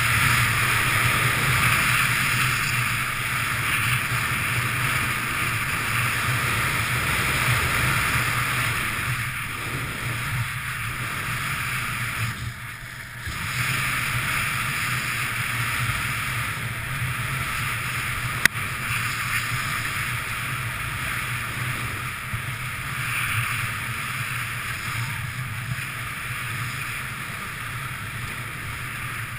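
Skis sliding and carving on groomed corduroy snow, a steady hiss, with wind rushing over the camera's microphone. The sound drops away briefly about halfway through, and there is a single sharp click a few seconds later.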